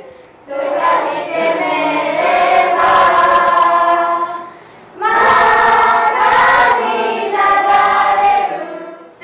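A class of children's voices sounding together in unison, in two long phrases with a short break about halfway.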